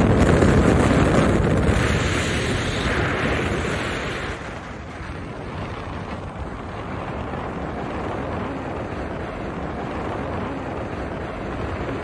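Wind buffeting the microphone on the deck of a fast-moving catamaran, over the rush of water past the hull. The wind noise eases a little after four seconds in, leaving a steadier, lower rush.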